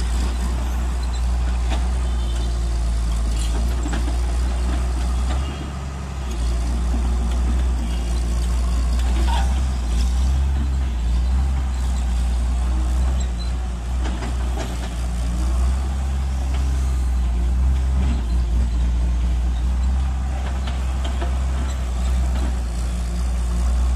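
Tata Hitachi EX130 Super+ hydraulic excavator's diesel engine running with a steady low drone as the machine digs and swings, easing briefly about five to six seconds in.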